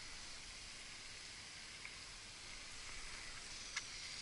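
Faint, steady outdoor background hiss, with a light click about two seconds in and another near the end.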